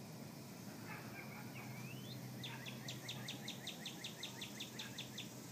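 A bird calling: a few short rising chirps, then a fast run of high, falling notes at about six a second, lasting roughly three seconds.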